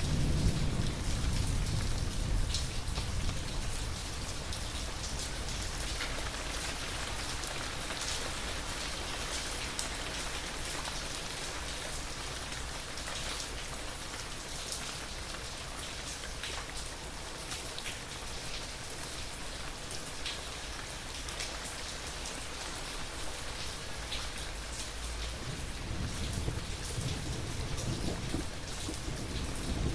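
Steady rain of a thunderstorm falling. A low rumble of thunder dies away over the first few seconds, and another rumble builds near the end.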